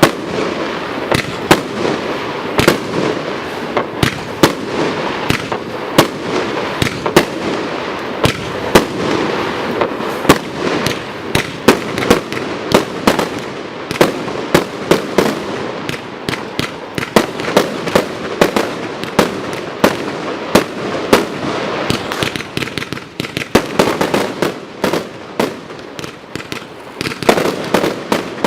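Retribution multi-shot firework barrage firing: a rapid, continuous string of sharp bangs, several a second, over a steady crackle. The shots thin out a little past the middle, then come thick again near the end.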